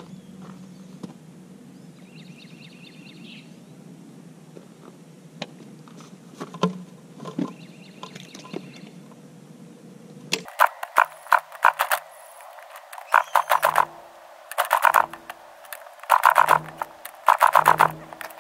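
Freshly rebuilt 2000 Yamaha YZ125 125cc two-stroke being kickstarted: after some footsteps on gravel, five or six kicks in quick succession starting about ten seconds in, each turning the engine over in a short burst of rapid pulses without it settling into a run.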